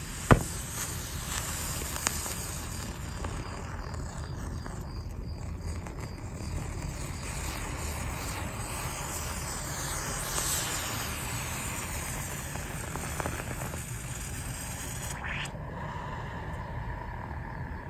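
Lithium metal from a lithium AA battery burning as it reacts with water, giving a steady hissing fizz with crackles. A sharp pop comes just after the start.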